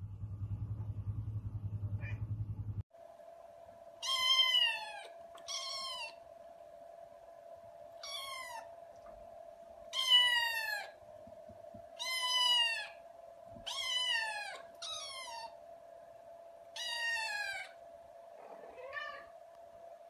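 Tabby kittens meowing again and again: about eight high calls, each falling in pitch, over a steady background hum, with a last, wavering call near the end. Before them, a low buzzing rumble that stops abruptly about three seconds in.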